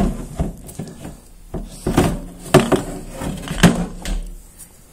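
Handling noise: a handful of irregular knocks and clatters as a submersible cellar pump, hanging on a rope with its garden hose, is guided down into a rainwater tank and bumps against the tank's plastic fittings.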